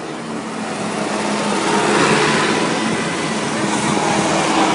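Tractor engine running as it comes closer, growing louder over about the first two seconds and then holding steady.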